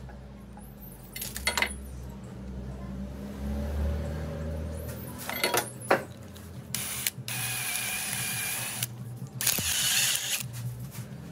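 Pliers snipping through a steel nail with sharp snaps, a few clicks as the nail is fitted into an electric drill's chuck, then the drill motor whirring in two short runs near the end.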